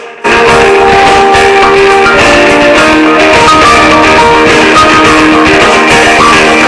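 Guitar-led phone tone from a Samsung Galaxy S4, played loud: a quieter opening jumps to full loudness a moment in, then runs steadily.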